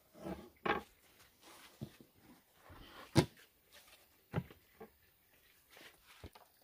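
Household items handled on a wooden plank table: a woven bamboo tray and plastic bowl and lid set down and moved, giving a scattering of short knocks and clatters, the sharpest a little after three seconds in.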